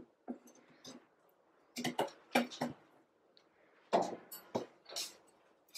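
Irregular short clicks, scrapes and rustles of handling: metal utensils lifting and shifting a whole raw saddle of venison.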